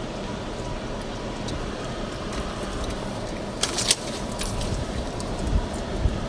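Car driving over a rough road: steady road rumble, with a short rattle of loose items just before the middle and low thumps from bumps near the end.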